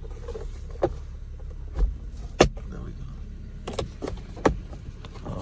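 Car sun visor being moved and pushed back into its clip: a handful of sharp clicks and knocks, the loudest about two and a half seconds in, over a low steady rumble.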